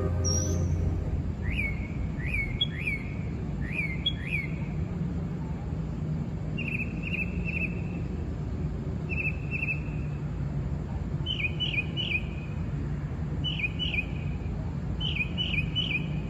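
A bird chirping in short calls, at first single falling notes and from about halfway on quick runs of three notes repeated every second or two, over a steady low hum.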